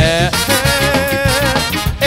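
Live ska band playing, with a trumpet, saxophone and trombone horn section over drums and bass; a long wavering note is held through most of it.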